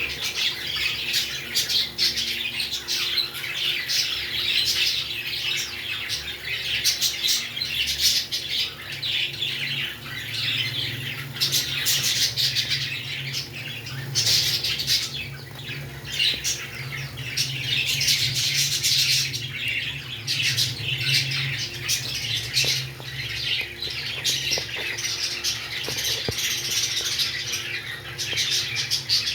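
Pet parrots chattering and squawking continuously in a dense run of quick, high chirps. A steady low hum runs underneath through the middle of the stretch.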